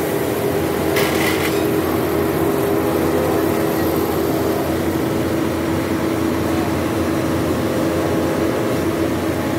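Concrete mixer truck running steadily with a hum while it discharges concrete down its chute, with a brief higher-pitched noise about a second in.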